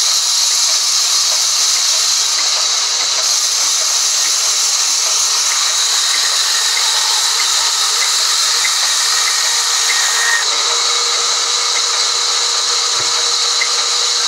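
Sawmill vertical band saw ripping lengthwise through a log as it is pushed along the blade, making a steady high hiss.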